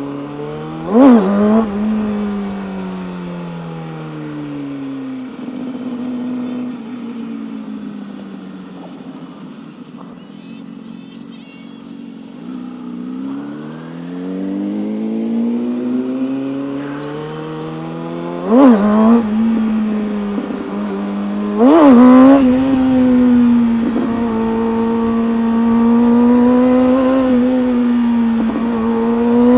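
Motorcycle engine heard while riding. A sharp rev about a second in, then the revs fall away as it slows and run low for several seconds. It then climbs through the revs as it speeds up, with two short sharp peaks, and settles into a steady cruise.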